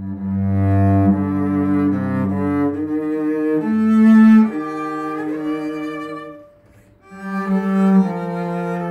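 Cello quartet playing slow, held bowed chords that shift every second or so. The chords break off about two-thirds of the way through, then start again.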